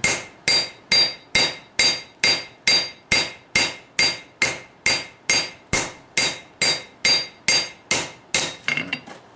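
Hand hammer striking red-hot flat steel bar on an anvil in a steady rhythm of about two blows a second, each with a short metallic ring, spreading the steel out wider. The last few blows are lighter and the hammering stops near the end.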